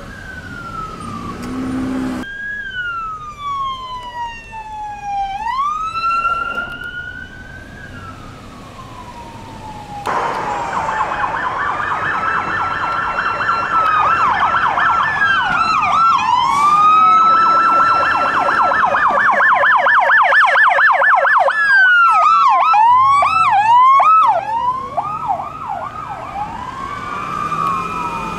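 Electronic sirens of fire department and police vehicles running code: a slow wail rising and falling, then from about ten seconds in a rapid yelp, with more than one siren overlapping and a burst of quick chirping sweeps near the end.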